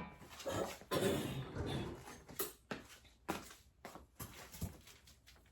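Irregular small clicks, knocks and brief rustling as packs of ribs are handled and taken out of a bucket.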